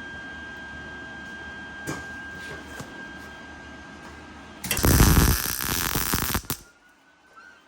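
A welder arcing in one short bead of about two seconds: a loud, harsh crackle that starts and stops abruptly, about five seconds in, over a steady high hum.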